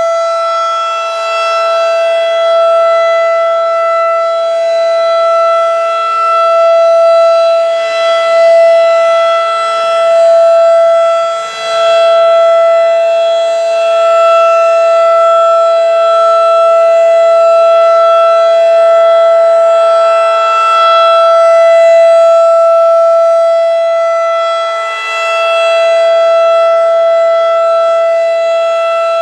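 Federal Signal 2001-DC rotating outdoor warning siren sounding its steady alert signal: one held tone of about 667 Hz that does not rise and fall. Its loudness swells and dips slowly as the head turns at 2.5 RPM.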